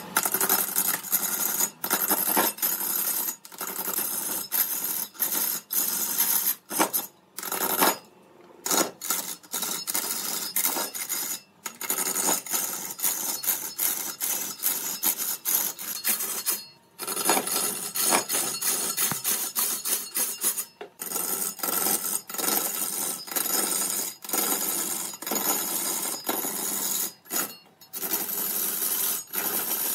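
A tool working a piece of wood: harsh scraping noise made of quick, repeated strokes, in runs broken by short pauses every few seconds.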